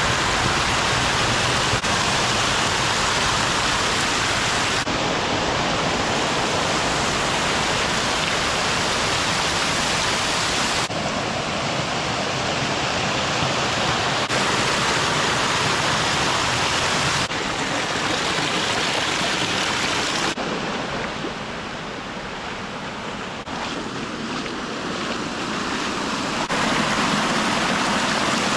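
Waterfall rushing in a steady roar of falling water. The sound changes abruptly several times and is quieter for a few seconds after about twenty seconds in.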